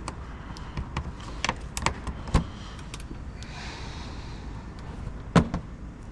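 Plastic clips and trim being pried and popped loose under a car to reach the fog light bulbs: a string of sharp clicks and knocks, the loudest about two and a half and five and a half seconds in, with a short scraping rustle in between.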